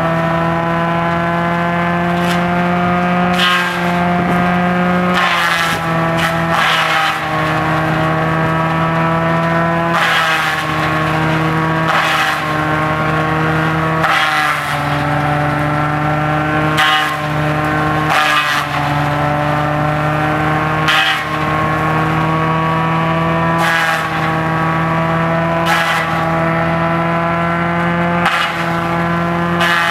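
Tractor engine driving a PTO-powered farm waste pulverizer at speed, a steady pitched hum with loud crackling bursts as dry palm fronds are fed in and shredded. Every few seconds the pitch sags under the load of a fresh feed, then climbs back.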